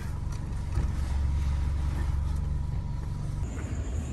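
A Toyota car running, heard from inside the cabin as a steady low engine and road rumble that eases off about three and a half seconds in.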